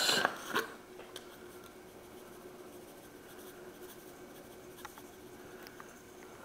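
Faint, light scratchy rustling as seasoning is put onto raw chicken, with a small knock about half a second in and a few soft ticks. A faint steady hum runs underneath.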